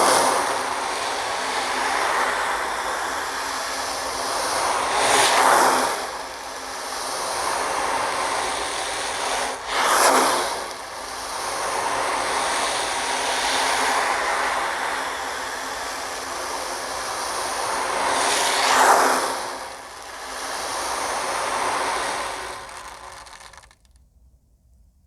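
Ocean drum tilted back and forth, its beads rolling across the drumhead in a continuous surf-like wash. The wash swells into louder waves several times, then stops near the end.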